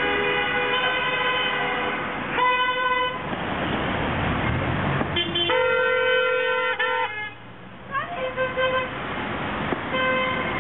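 Car horns honking one after another over passing traffic, in several pitches. Some are held for a second or two, others are short toots, and about halfway through two or more sound together. Drivers are honking in answer to a roadside 'honk' protest banner.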